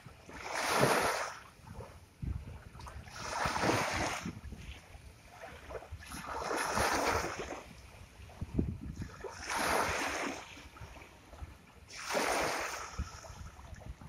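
Ocean waves washing up on the shore: five surges, about one every three seconds, each swelling into a hiss and falling away.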